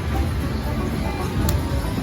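Eureka Treasure Train slot machine playing its bonus-feature music and jingles over the steady hum of a casino floor, with a short click about one and a half seconds in.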